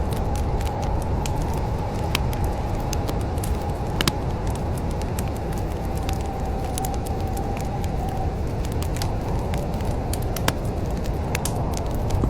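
Wood fire crackling in a fireplace: irregular sharp pops and snaps over a steady low rumble, with a few louder pops about four seconds in and near the end.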